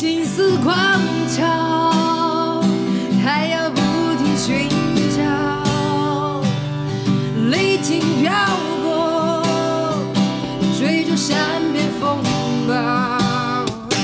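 A woman singing a Mandarin pop ballad, with vibrato on held notes, over a strummed acoustic guitar.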